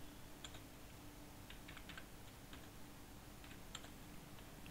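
Faint typing on a computer keyboard: scattered key clicks, with a quick run of them around two seconds in.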